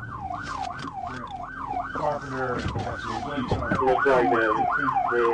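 Police car siren on a fast rising-and-falling yelp, about two to three sweeps a second. About two seconds in, a second, lower siren joins and grows louder.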